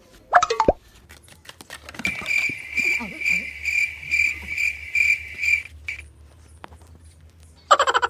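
Cricket chirping: a steady high chirp repeating about twice a second for about four seconds. A short loud pitched sound comes just after the start, and a goat starts bleating near the end.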